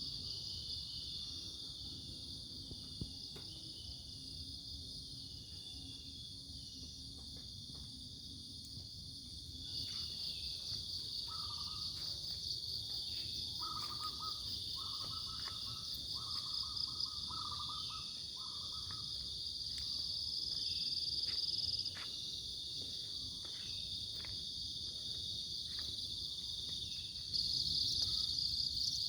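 Crickets chirring in a steady, high-pitched chorus, over a low rush of a stream. Around the middle, another animal gives a run of short mid-pitched calls.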